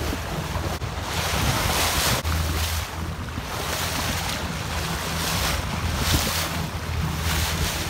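Wind buffeting the microphone and sea water rushing and splashing past a moving boat's hull, surging every second or so over a steady low rumble.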